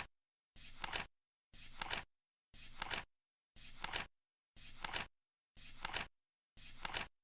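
Flip clock ticking once a second, seven times: each tick is a brief flutter ending in a sharper click, with dead silence between.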